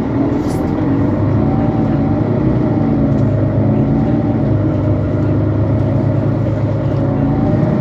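Mercedes-Benz Citaro C2 Euro 5 city bus's diesel engine running under way between stops, heard from inside the bus: a steady engine drone whose pitch wavers gently, getting a little louder in the first second.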